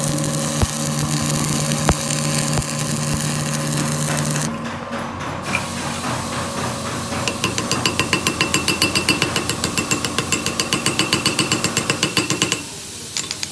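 Stick arc welder crackling with a steady electrical hum as a weld is laid on a steel tie rod end socket, stopping about four and a half seconds in. A few seconds later a small hammer taps rapidly on the fresh weld, several sharp metallic strikes a second, for about five seconds.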